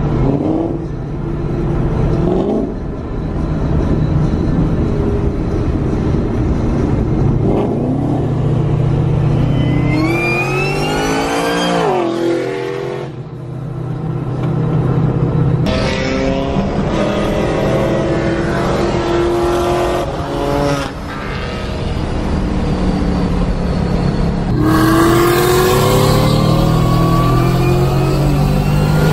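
Straight-piped Cadillac CTS-V V8 accelerating hard, heard from inside a car. The engine note climbs steeply in pitch and drops back at each shift. There is one hard pull about ten seconds in and another near the end.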